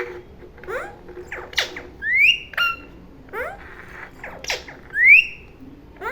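Pet green parrot calling: short chirps and squawks, with two loud rising whistles about two and five seconds in.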